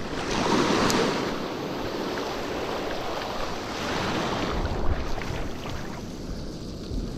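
Surf washing in the shallows: a steady rush of water that swells in the first second or so, then settles and eases near the end.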